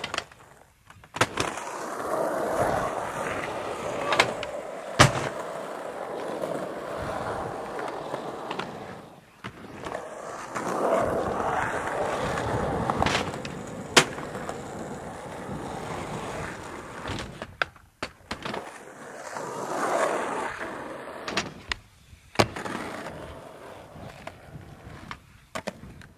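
Skateboard wheels rolling over a concrete skatepark surface, the rolling noise rising and fading in long stretches. It is broken about half a dozen times by sharp clacks of the board hitting the ground or a ramp.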